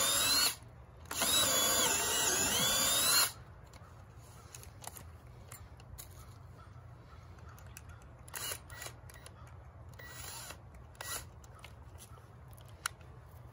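Ridgid cordless drill boring a pilot hole through a wooden timber. The motor whine wavers in pitch under load, stops about half a second in, then runs again for about two more seconds. After that come only quiet clicks and knocks of handling.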